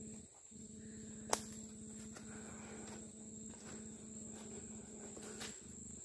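Insects trilling steadily at a high pitch in the woods, over a low steady drone, with one sharp click about a second in.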